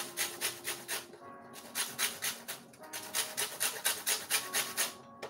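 A lemon being grated on a stainless steel box grater for its zest: quick rasping strokes, about five a second, in three runs with short pauses between.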